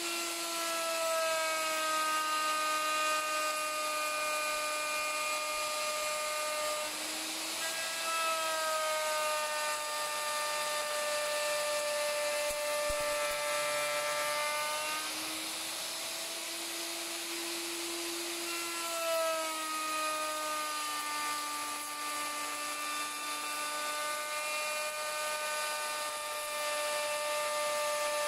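Plunge router motor running steadily with a high whine while cutting a rebate along the edge of a pine board. The pitch slowly sags as the cutter takes load and picks back up twice, about a quarter and about halfway in.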